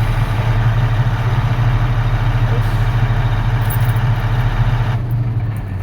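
Heavy diesel engine of earthmoving equipment running steadily with a deep, pulsing throb. The higher noise above it drops away about five seconds in.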